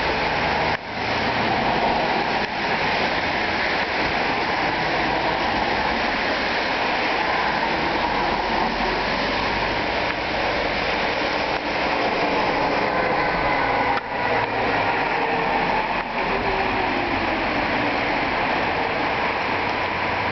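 Flxible transit bus in the rain: a steady rush of engine, tyre and rain noise, with a few brief dips in level.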